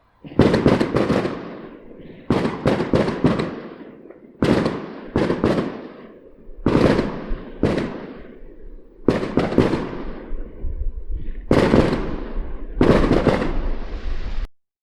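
Fireworks going off in quick clusters of two to four sharp bangs, a new cluster about every two seconds, each leaving a rumbling echo. The sound stops abruptly near the end.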